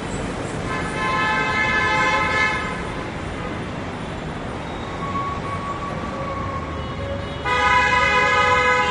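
Road traffic running steadily, with vehicle horns honking: a long blast about a second in lasting some two seconds, a fainter tone in the middle, and a louder blast of about a second and a half near the end.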